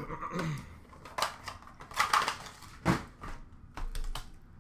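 Handling noise as trading cards and card boxes are put down and moved around in a plastic bin: a run of sharp clicks and knocks with some rustling, loudest about two seconds in.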